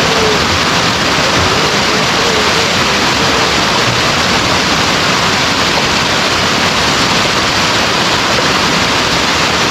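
Rushing water of a stream or river, a loud, steady rush with no breaks.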